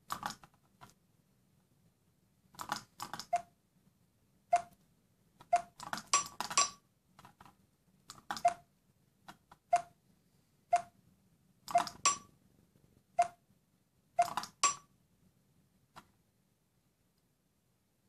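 Large dome-button accessibility switch pressed and released over and over, making sharp plastic clicks with a short ring, about a dozen times at irregular intervals, some in quick pairs.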